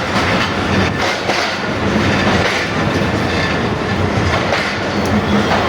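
Train running along the track, a loud steady rumble with the wheels clicking over rail joints now and then.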